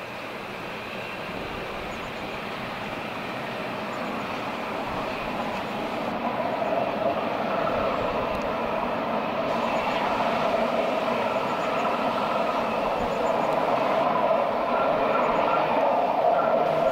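Rhaetian Railway electric passenger train running over the viaduct, a steady rumble that grows gradually louder as it approaches.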